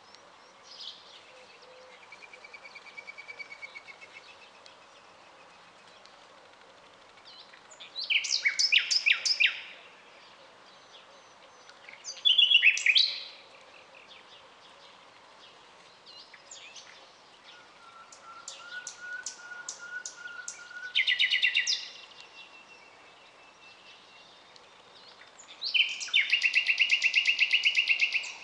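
Common nightingale singing: separate phrases a few seconds apart, each a fast run of repeated notes, with four loud phrases and quieter ones between. A soft, level whistle comes just before one of the loud phrases, and the last phrase is a long run of rapid notes.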